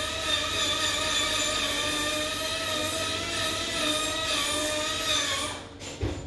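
Steady mechanical whine from a running motor, holding a few pitches with a slight waver, fading out about five and a half seconds in.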